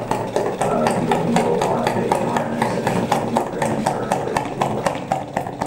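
A homemade two-cylinder Stirling engine runs with an even, rhythmic clicking of about five clicks a second.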